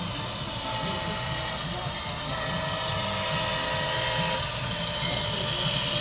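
Model train of two CSX AC4400CW diesel locomotives approaching along layout track: a steady mechanical running and clicking with a low rumble, growing louder as the locomotives draw near.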